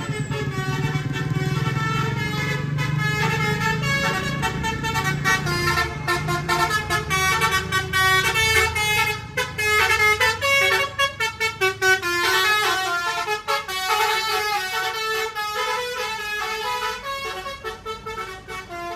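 An Indonesian bus's multi-tone musical horn playing a tune of quick stepped notes, with a fast run of short notes about halfway through; the bus engine rumbles low underneath in the first half.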